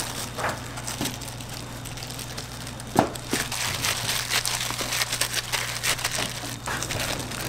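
Clear plastic food-handling gloves crinkling and rustling as hands press a sandwich and scoop croquette filling from a plastic tub, with a sharp knock about three seconds in. A steady low hum runs underneath.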